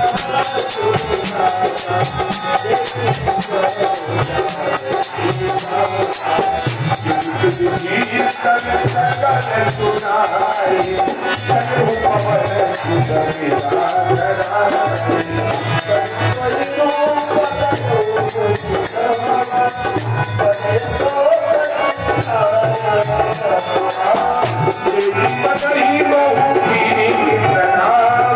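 Live Indian music: a harmonium carrying the melody over a dholak beat, with fast jingling hand percussion that stops near the end.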